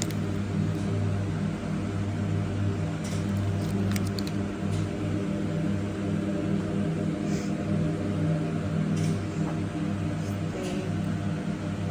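Steady mechanical hum of supermarket refrigerated display cases, with a few faint clicks about three and four seconds in.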